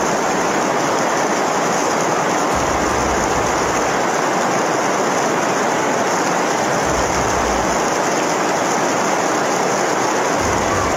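Heavy rain pouring down onto a flooded street, a steady unbroken rush of splashing water with no letup.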